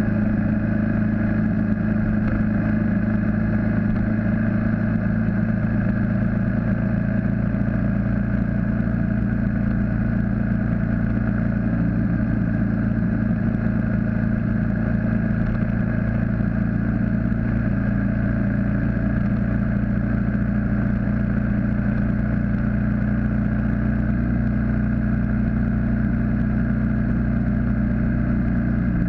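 BMW G650GS motorcycle's single-cylinder engine running steadily at cruising speed, with wind and road noise, heard from the bike itself.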